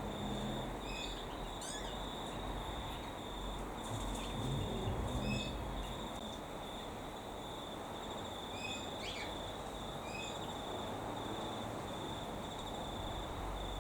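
Insects trilling steadily on one high pitch, with a few short bird chirps and quick falling calls scattered through, over a low background rumble.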